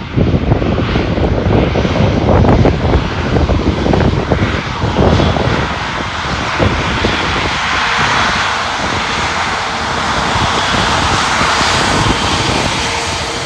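Airbus A350-1000's Rolls-Royce Trent XWB-97 turbofans running at taxi power as the jet rolls past close by: a continuous rushing jet noise, rumbly at first, turning to a brighter hiss about halfway through as the engines come abeam.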